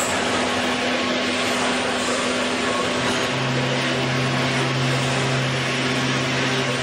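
Euromac ZX CNC turret punch press and its pneumatic sheet loader running: a steady machine hiss and hum with no punch strokes. A second, lower steady hum comes in about three seconds in while the sheet is being moved.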